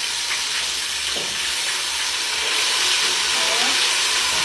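Fish frying in hot oil in a pan, a steady sizzle with one faint knock about a second in.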